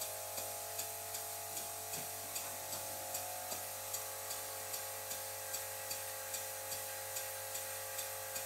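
Stuart Victoria model mill engine running slowly on compressed air, ticking evenly about two and a half times a second. Under it runs the steady whine and hum of a 'silent'-type air compressor, an annoying noise that is louder than it should be for such a machine.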